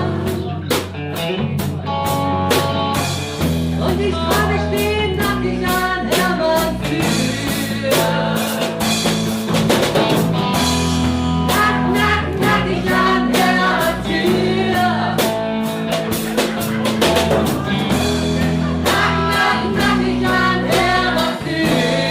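Live band with drum kit, bass and guitar playing a rock song while a crowd sings along.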